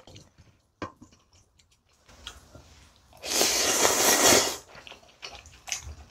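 A few light clicks as ramen noodles are lifted with chopsticks, then about three seconds in a loud slurp of spicy ramen noodles and broth from a spoon, lasting just over a second.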